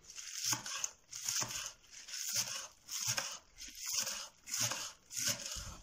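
Kitchen knife finely chopping green onions on a wooden cutting board: a steady rhythm of crunchy cuts, about one every 0.7 s, each with a light tap of the blade on the board.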